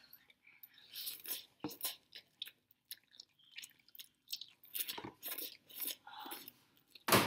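People slurping and chewing instant noodles: a run of short, irregular sucking and smacking sounds, with one louder burst near the end.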